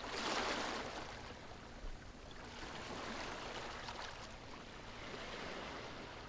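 Sea waves washing in: a wave surges loudest in the first second, then softer swells of surf follow.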